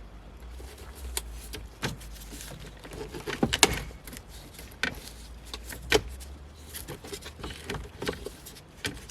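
Plastic electrical connectors being unclipped from the underside of a car's centre console trim panel: irregular clicks and small rattles, the sharpest about three and a half seconds in and again at six seconds.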